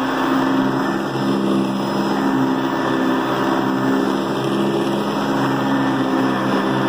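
Hoover High Performance Convertible upright vacuum running at its single speed, its 5-amp motor giving a steady hum over a rush of air.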